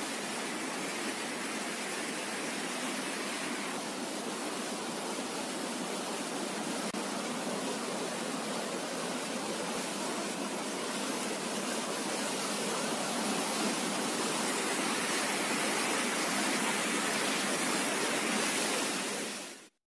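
Mountain river rapids: a steady rush of fast-flowing water that cuts off suddenly near the end.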